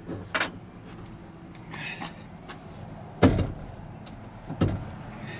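Sharp knocks and taps as a clip-in window seal piece is pushed and snapped into the frame of a 1985 Ford F-150's steel door. A small knock comes near the start, the loudest a little past three seconds in, and another about a second later.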